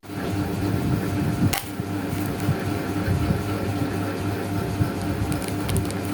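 Paper and stationery being handled for a journal page: soft rustling and small taps, with a sharp click about a second and a half in, over a steady low hum.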